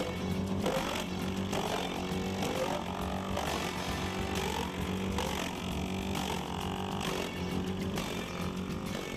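GreenMech SafeTrak 220 wood chipper, with its four-cylinder engine running steadily under load, chipping logs fed through the infeed. A steady engine drone sits under a chipping noise that rises and falls.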